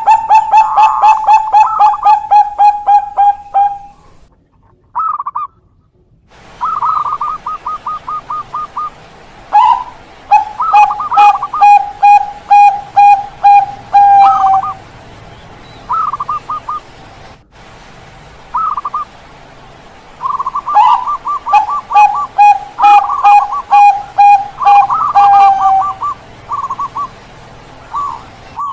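Bangkok-type zebra dove (perkutut) cooing its contest song: quick runs of short, clipped coo notes in three long bouts, with a few short phrases between and a brief silent gap a few seconds in.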